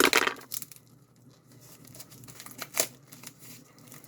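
A mailed package being torn open: a loud rip of paper or plastic packaging at the start, then crinkling and scattered rustles as it is worked open.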